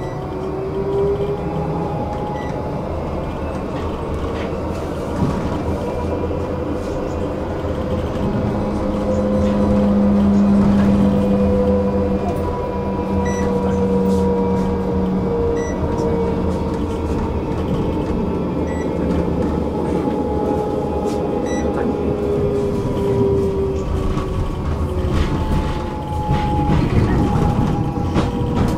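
Electric tram under way: rumble of wheels on rails, with the whine of the traction motors gliding slowly up and down in pitch as it speeds up and slows.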